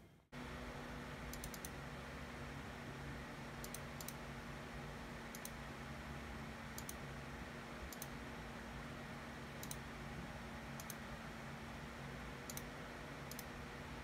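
Faint computer mouse clicks, single and in quick pairs or triplets every second or two, as options are picked from dropdown menus on a web page, over a steady low electrical hum.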